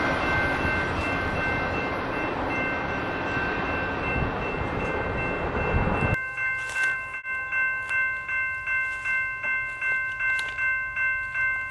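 The noise of a freight train that has just passed dies away under the steady ringing of a railroad grade-crossing bell. About six seconds in, the train noise cuts off and the crossing bell rings alone, about two strokes a second.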